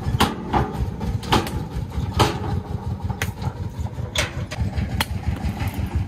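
Diesel engine running with a rapid low chugging, with sharp clacks or knocks about once a second over it.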